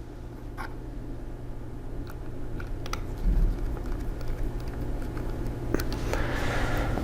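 Small screws and a #0 Phillips screwdriver ticking and clicking as the screws holding a 2.5-inch drive caddy are set and driven into a laptop chassis. A low handling rumble comes in about three seconds in.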